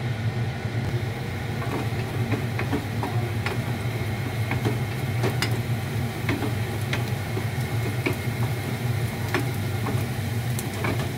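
Chopped garlic sizzling in oil in a small nonstick frying pan, with scattered crackles and the scrape and tap of a wooden spatula stirring it, over a steady low hum.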